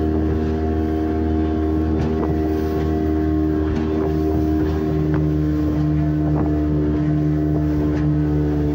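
Motorboat engine running steadily at speed, a constant low hum with a steady drone over it, its note shifting slightly about halfway through.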